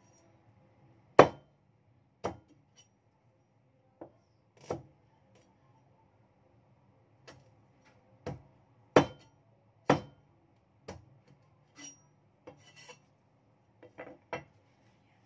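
Meat cleaver chopping into a whole raw chicken on a thick wooden chopping block: about a dozen sharp, irregular chops with pauses between them. The hardest strikes come about a second in and twice around nine to ten seconds in.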